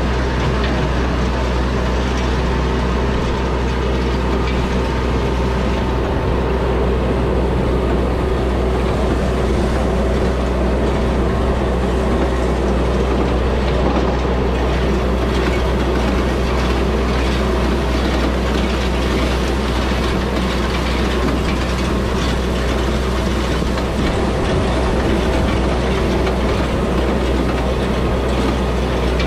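Yanmar compact diesel tractor engine running steadily as it tows an antique side-delivery hay rake, with the rake's reel and gears clattering and rattling continuously over the engine hum.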